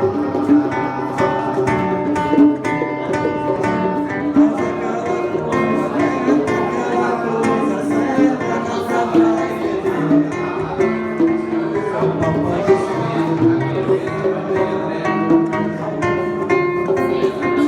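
Acoustic guitar (violão) playing a continuous run of notes, with hand drums (bongos and congas) tapping along.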